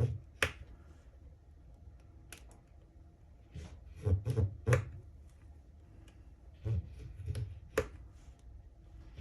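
Scoring tool drawn across a sheet along a clamped template: a series of short, scratchy strokes at uneven intervals, with a cluster of them about four seconds in and another near the end.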